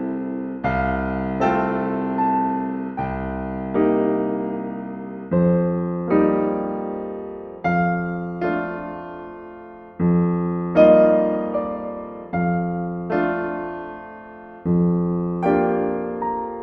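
Slow, gentle solo piano music: soft chords struck every second or two, each left ringing and fading before the next.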